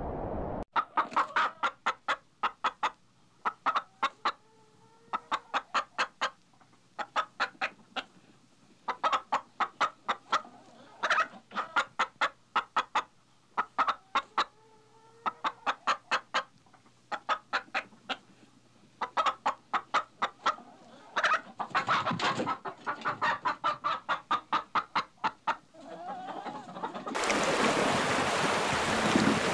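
Chickens clucking in quick bursts of rapid clucks every second or two, with a drawn-out call now and then. Near the end the clucking gives way to a steady wash of water.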